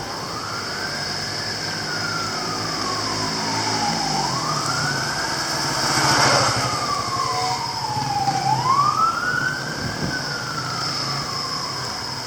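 An emergency vehicle's wailing siren, its pitch sweeping up and then slowly back down about every four seconds. It is loudest about six seconds in, as the vehicle goes by with its engine running underneath.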